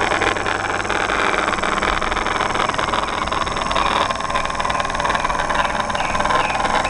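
Small homemade brushless electric motor spinning a propeller, running with a steady whirring hum that holds constant pitch.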